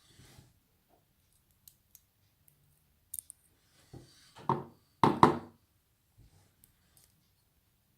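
Small metal clicks and taps from handling the pins and parts of a disassembled Abus 83CS padlock, with two louder clatters about four and a half and five seconds in.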